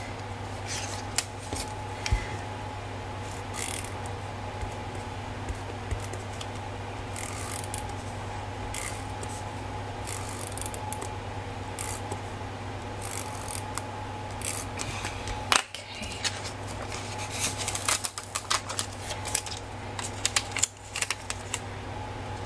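Paper sticker strips being peeled from their backing and smoothed onto a planner page: scattered crisp crackles and rustles, busiest in the last few seconds, over a steady low hum.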